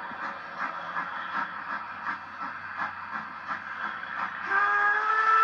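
Narrow-gauge K-27 class 2-8-2 steam locomotive No. 463 working slowly, its exhaust chuffing about three beats a second. About four and a half seconds in, its chime steam whistle starts blowing as one steady chord of several tones, heard through a television's speaker.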